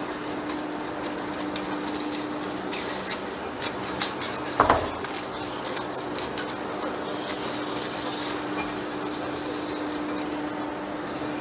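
Heavy-duty face lathe turning a large steel rotor workpiece under a cutting tool: a steady machine hum with scattered sharp clicks and ticks, and a brief louder knock about four and a half seconds in.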